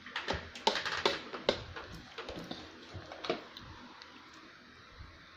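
Light taps and knocks on a plastic high-chair tray, about eight in the first three seconds, then fewer and fainter.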